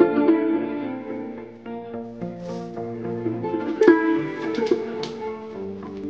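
Instrumental background music: plucked string notes over held tones.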